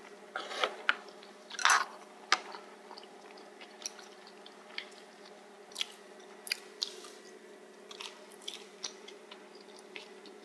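A person chewing a mouthful of spicy stir-fried pork cartilage (odolbbyeo), the gristle crunching between the teeth. A quick run of loud crunches comes in the first couple of seconds, then softer, scattered crunches about once a second.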